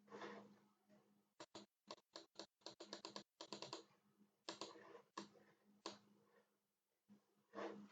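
Faint computer keyboard typing: a quick run of about a dozen key taps a second or so in, with a few softer scuffs before and after, over a steady low hum.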